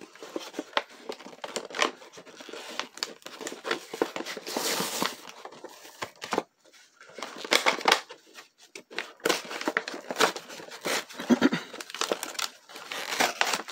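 Cardboard toy box being torn open by hand, with its clear plastic blister pack crinkling and crackling as it is handled. The irregular rips and rustles pause briefly about halfway, then come louder.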